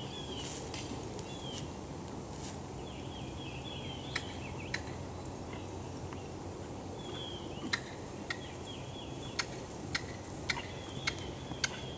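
A bird calling in short runs of quick, falling high notes, repeated every few seconds over a steady outdoor background, with scattered sharp clicks.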